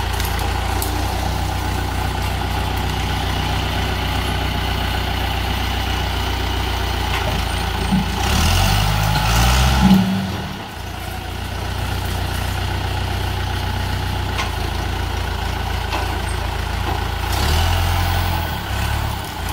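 John Deere farm tractor's engine running steadily as the tractor pushes into brush. Its pitch bends up and down about eight seconds in and again near the end, the first time with a brief burst of higher noise.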